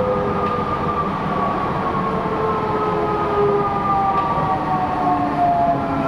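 Type V Vienna U-Bahn train running, its electric drive whining in several tones that slowly fall in pitch as the train slows toward a station, over steady rolling noise of the wheels on the track.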